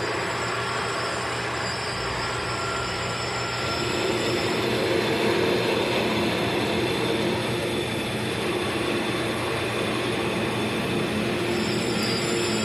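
CNC lathe taking a roughing cut: the spindle running and the tool cutting the workpiece, a steady mechanical noise with high, steady whining tones.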